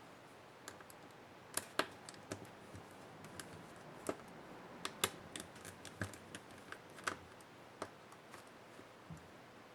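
Irregular light clicks and taps of small plastic and metal parts and tools being handled while a Dell Latitude 7300 laptop is taken apart, a couple of clicks a second, some sharper than others.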